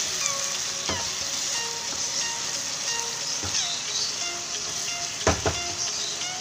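Poppy seed paste and potatoes sizzling in hot mustard oil in a non-stick kadai while being stirred with a wooden spatula. The spatula knocks against the pan about a second in and twice in quick succession near the end.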